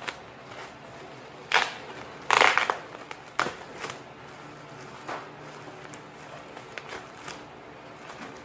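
Bubble wrap being pulled open and handled, the plastic crinkling in a few short bursts, loudest about two and a half seconds in.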